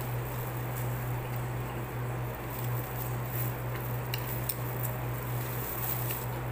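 A steady low hum under quiet room noise, with a few faint clicks and crackles from crab being picked apart with plastic-gloved hands.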